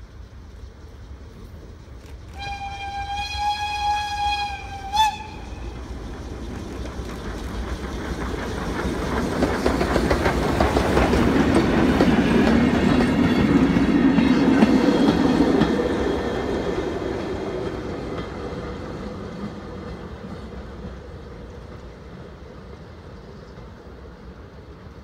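Steam locomotive's whistle sounds once, a steady single note held for about two and a half seconds and cut off sharply. Then the steam train with its goods wagons passes close by: its running noise swells to a peak around the middle and fades slowly as it pulls away.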